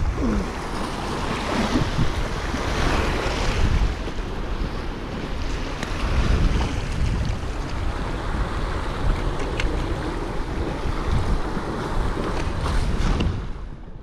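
Sea waves washing against shore rocks, with wind buffeting the microphone in a heavy, uneven rumble.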